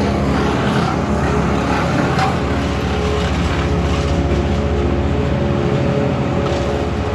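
A vehicle or machine engine running steadily, with an even low hum of engine tones.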